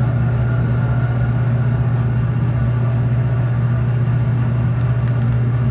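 Steady low hum of a laboratory fume hood's exhaust fan, with an even rushing noise above it.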